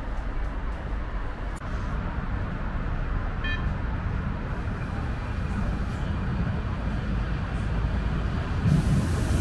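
Street traffic noise from passing cars: a steady rumble of engines and tyres that grows louder near the end.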